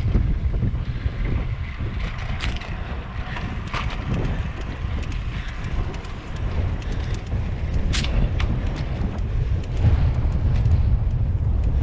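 Wind buffeting the microphone of a camera riding along a concrete path, a steady low rumble. A few sharp clicks cut through it, the loudest about eight seconds in.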